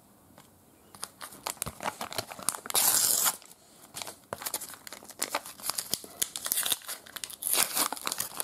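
A thin paper sticker packet being torn open by hand, its wrapper crinkling and crackling, with a louder tear about three seconds in.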